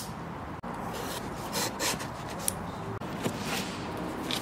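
A pocket knife slitting the packing tape on a cardboard shipping box, then the cardboard flaps being pulled open: a sharp click, then a series of short scraping, tearing rasps of blade and tape on cardboard.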